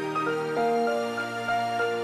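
Gentle background music: a slow, calm melody of held notes over soft chords.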